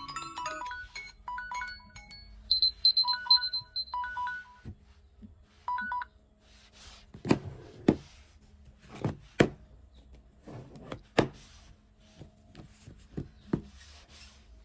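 Electronic alarm tones from several smartphones beeping over one another, thinning out until the last stops about six seconds in. Then a string of irregular knocks and taps, about a dozen, spread over the rest.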